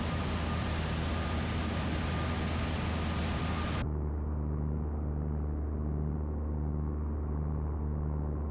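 Cabin drone of a Super Decathlon's four-cylinder Lycoming engine and propeller in flight, steady, under a wide hiss of airflow. About four seconds in the hiss is suddenly cut away, leaving a duller engine drone.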